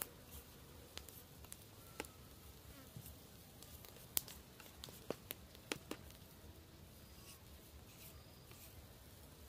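Knife blade shaving thin strips off a raw carrot: short, crisp clicks at irregular intervals, the sharpest about four seconds in and a quick cluster a second later.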